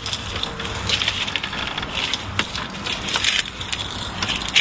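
Gritty crunching and scraping of brick, mortar and rubble, with irregular sharp knocks, as masonry is broken out around an old rusted angle-iron lintel to free it from the wall.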